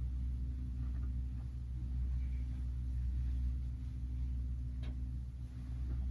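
Steady low hum, with a few faint soft clicks and rustles over it.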